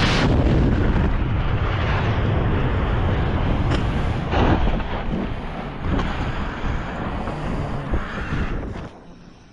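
Heavy wind buffeting a head-mounted camera's microphone during a parachute descent after ejection from an Su-25, with a sharp boom about four and a half seconds in from the crashed jet exploding on the ground. The wind noise drops away suddenly near the end.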